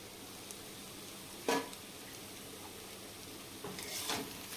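Cabbage and potato sizzling softly in a metal kadai, with one sharp metallic knock about a second and a half in. Near the end a metal spatula starts scraping and stirring through the mixture against the pan.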